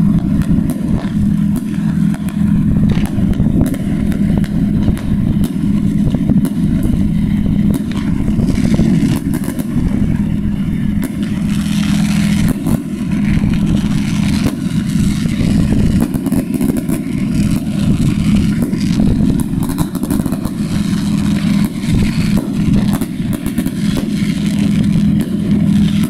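Aerial fireworks bursting in quick succession, a dense run of bangs and crackles, over a steady low hum.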